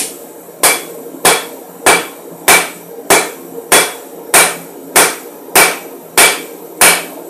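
Hand hammer striking a red-hot steel bar on an anvil: eleven evenly paced blows, about three every two seconds, each with a short metallic ring. A steady hum runs underneath.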